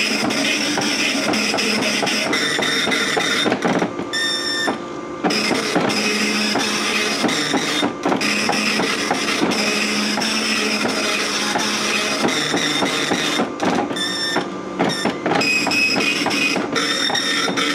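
Okidata Pacemark 3410 9-pin dot matrix printer printing, its print head buzzing as it sweeps back and forth across the wide carriage while putting down double-strike near-letter-quality text. A couple of times the printing breaks off briefly and a pitched motor whine sounds.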